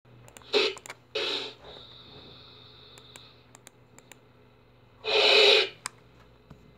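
Three short breathy noise bursts, like snorts or puffs of breath close to the microphone, about half a second, a second and five seconds in.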